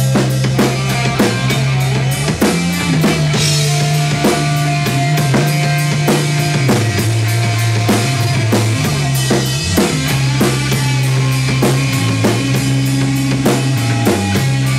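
Rock band playing an instrumental passage live: a drum kit keeping a steady beat under electric guitars holding low, sustained notes, with a cymbal crash about three and a half seconds in.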